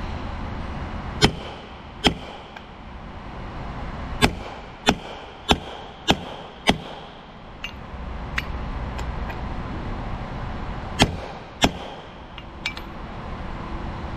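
Hammer blows on a steel drift, driving a part down flush inside a Hale pump's cast bearing housing. About nine sharp metallic hits in uneven runs (two, then five in quick succession, then two more), with lighter taps between and a brief ring after each.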